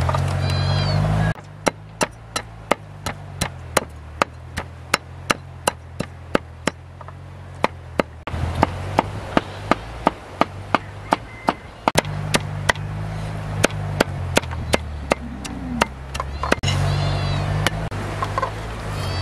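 A steady series of sharp knocks, about three a second, over a low steady drone; the knocks stop shortly before the end, where a few high chirps are heard.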